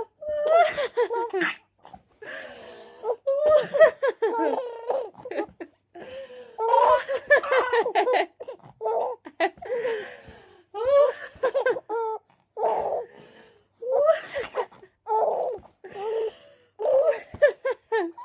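A baby about four months old laughing in a string of short, high-pitched bursts, with breathy gasps between them.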